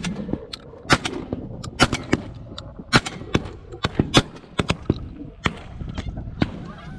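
Volley of shotgun shots at a passing flock of geese: a rapid run of sharp bangs over about five seconds, some loud and close, others fainter, from several guns firing together. The loudest shot comes right at the start from the shotgun at the camera, which throws out its spent shell.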